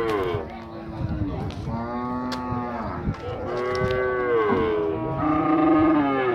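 Cattle mooing: one call trails off just after the start, then three long moos of about a second each follow, the last one the loudest.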